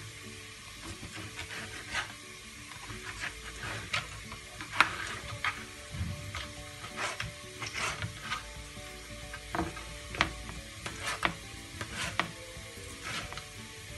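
Kitchen knife cutting raw boneless chicken breast into small pieces on a plastic cutting board: irregular taps of the blade striking the board, a few to several a second, over a faint steady hiss.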